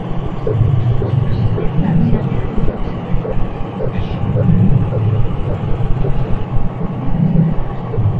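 Noise music: a dense, loud, rough low rumble with scattered crackling clicks running through it, without a clear tune or beat.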